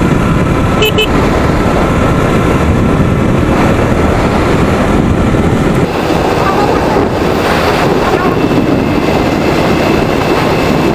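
Steady wind rush on the microphone with road and traffic noise while riding a motorcycle, with two short beeps about a second in.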